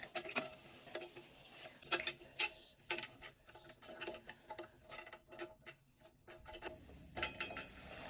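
Irregular small clicks and taps, several a second, of a plastic toilet flush handle and its parts being handled and fitted into the tank, with a few louder clicks about two seconds in and near the end.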